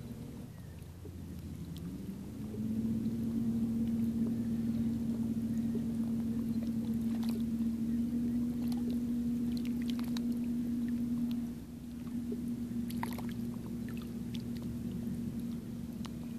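Motorboat engine droning steadily, its pitch and loudness rising about two seconds in and then holding; it drops in loudness a little past halfway and carries on more softly.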